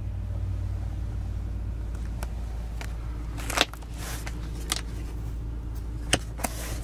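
Steady low hum in a Ford Crown Victoria's cabin, with several sharp clicks and knocks from about two seconds in as the sun visor is grabbed and moved.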